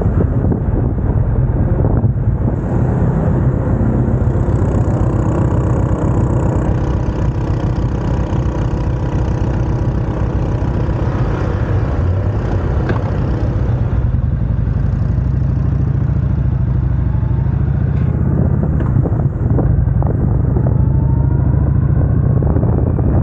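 Motorcycle engine running steadily while riding, a dense low rumble with wind on the microphone. The pitch rises a little near the end.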